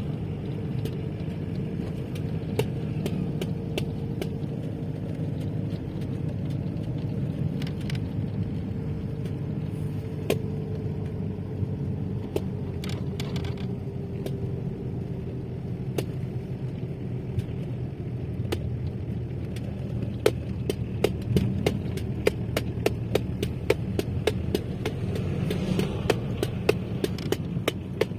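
Motor vehicle driving: a steady engine hum and road rumble, with a quick run of small sharp clicks or ticks in the last several seconds.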